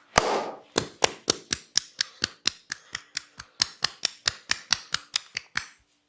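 A barber's hands slapping the body in quick percussive massage strokes, about four to five a second, after one louder, noisier slap at the start; the slapping stops suddenly near the end.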